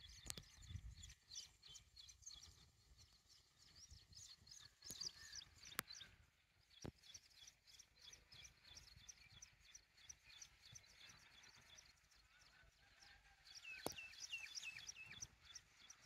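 Small birds chirping faintly in quick runs of short calls, busiest about a third of the way in and again near the end, with a few sharp clicks.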